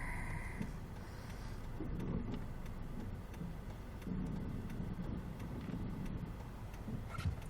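Car cabin noise while driving: a steady low engine and road rumble, with a short click near the end.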